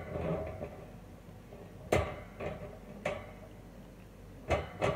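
Sharp knocks and clicks of a wall fan's wire guard being handled and fitted during reassembly, about three strikes a second or so apart.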